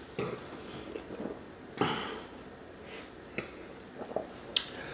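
A man breathing quietly, with a sniff or short exhale about two seconds in and a few faint clicks near the end.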